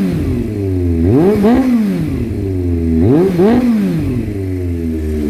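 Suzuki GSX400 Impulse's water-cooled inline-four, heard at the exhaust tip of its aftermarket WR'S muffler, idling and revved in quick double throttle blips about every two seconds, falling back to idle after each.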